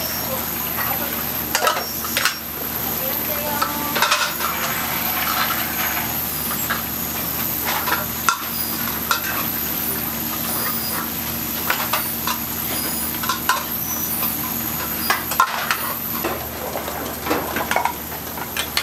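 Small metal pots of spicy braised hairtail stew sizzling and bubbling over open gas burners, with the steady rush of the flames. Scattered sharp metallic clinks of tongs against the pots come throughout.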